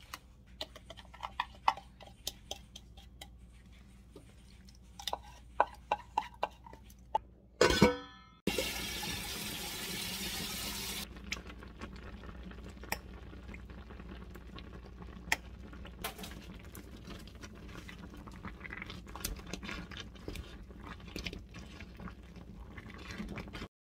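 A spoon scraping and clicking against a bowl as a thick chili sauce is mixed. Then, after a brief hiss, a pot of rice cakes, fish cakes and ramen simmers steadily in its broth with small clinks of a stirring utensil.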